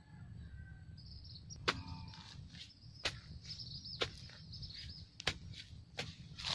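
Insect trilling steadily from about a second in, with several sharp knocks about a second apart over a low rumble.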